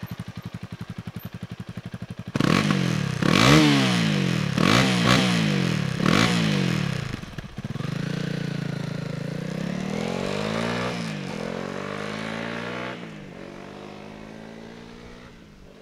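Honda CRF300L's single-cylinder engine through its stock exhaust, which has a subtle, quiet tone. It idles with a steady, rapid beat, then is revved up and down in about four quick bursts. It then pulls away through the gears, pitch climbing and dropping at each shift, and fades out.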